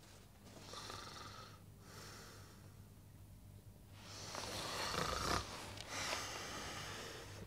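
A man snoring in his sleep: slow, noisy breaths, with the loudest, rattling snore about halfway through, followed by a long exhale.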